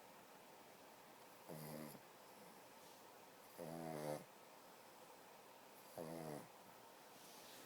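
Sleeping pug snoring: three snores, each about half a second long, coming about every two seconds.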